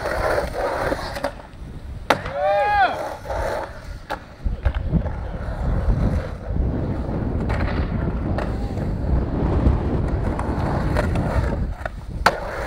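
Skateboard wheels rolling on a concrete skatepark, with sharp clacks of the board popping and landing several times. About two seconds in, a brief high call rises and falls over the rolling.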